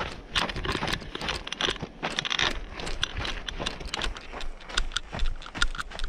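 Footsteps crunching and scuffing on a dirt and gravel trail, many irregular sharp steps.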